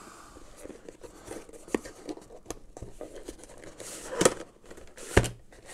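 Hands handling a cardboard presentation box: card rubbing and scraping as the inner compartment is worked loose, with scattered small clicks and two sharper knocks about four and five seconds in.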